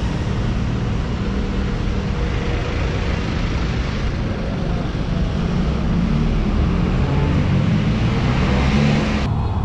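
Street traffic: vehicle engines running and cars driving past, swelling near the end as a jeepney passes close by.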